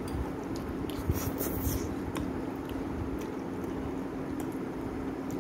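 People chewing instant noodles eaten by hand, with wet mouth and finger sounds and scattered short clicks, over a steady low hum.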